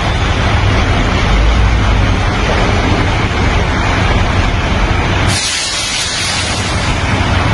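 FNM Alfa Romeo truck's diesel engine running with a heavy low rumble. About five seconds in, the rumble drops away and a loud hiss of air takes over for about two seconds before the engine sound returns.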